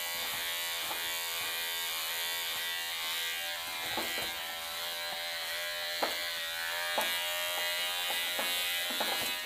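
Unix electric hair clipper with a 12 mm guard running steadily as it is passed over the head, its motor hum broken by a few light knocks. It cuts off at the very end.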